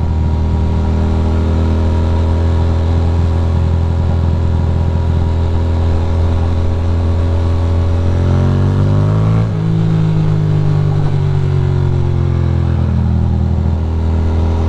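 Ducati Monster's L-twin engine running under way, rising in revs about eight seconds in, dropping sharply about a second later as it shifts, then easing off slowly.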